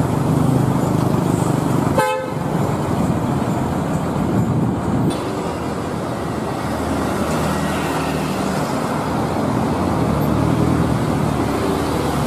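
Big coach's engine running close by amid street traffic noise, with a short horn toot about two seconds in.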